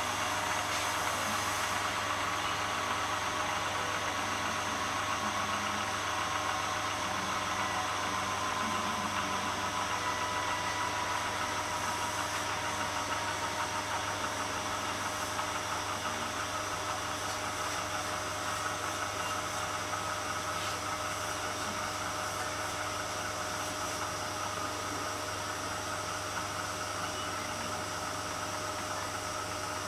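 Dynamic balancing machine spinning a Ducati M900 crankshaft and flywheel to measure its balance. It makes a steady mechanical whir with a low hum and several steady whine tones, one of which slowly falls in pitch in the first half.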